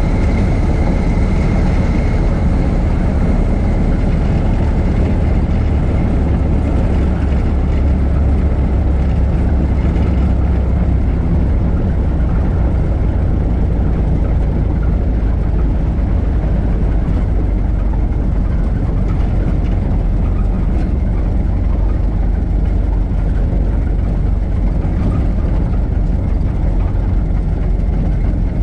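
1926 Ford Model T's four-cylinder engine running as the car drives along, a steady low rumble.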